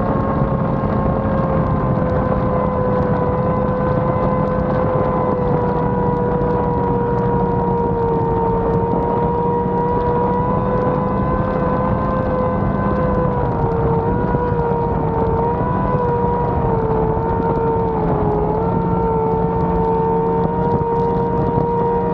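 Speedboat engine running at steady high revs, its pitch holding nearly level with small wavers, over a steady rushing noise.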